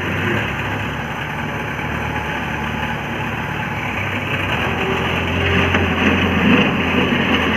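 Engine of a small Bull levelling machine running steadily as it levels a granular sub-base layer, getting louder about five seconds in.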